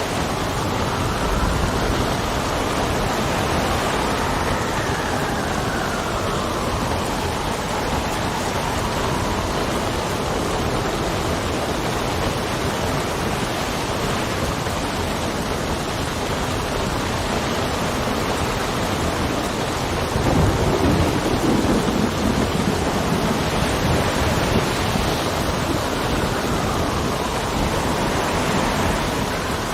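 Steady heavy rain with wind whistling in slow rising and falling gusts, and a low roll of thunder about twenty seconds in.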